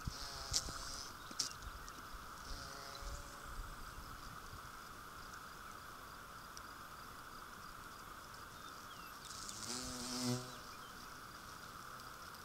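Bumblebee buzzing as it flies close to the microphone. There are short buzzes in the first few seconds, then a louder, low buzz that swells to a peak a little after nine seconds in. A steady high-pitched drone runs underneath.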